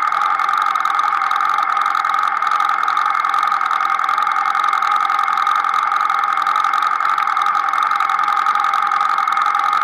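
Grasstrack race car's engine running steadily at low revs, heard from the action camera mounted on the car, with no change in pitch.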